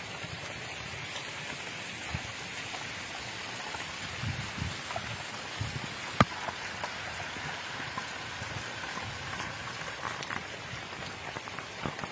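Heavy rain pouring onto a flooded field, a steady dense hiss of drops on standing water. A single sharp knock about halfway through.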